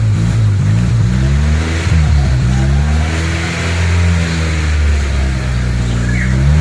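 1995 Honda Accord Cielo engine running with its revs rising and falling, during a throttle-body carbon clean.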